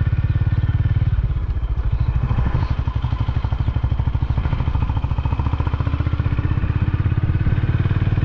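Honda CB350RS's single-cylinder engine running as the motorcycle is ridden, heard from on the bike. The engine note eases off briefly about a second in, then carries on steadily.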